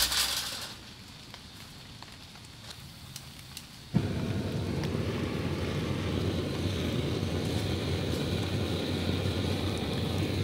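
Butane gas torch burning with a steady roaring hiss, starting suddenly about four seconds in, its flame held to firewood to light a fire pit.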